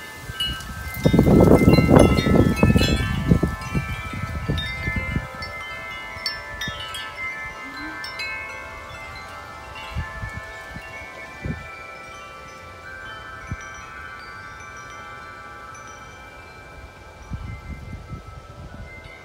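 Several large tube wind chimes swinging in strong storm wind, many ringing tones struck over and over and overlapping. About a second in, a loud gust buffets the microphone for about four seconds, with smaller gusts later.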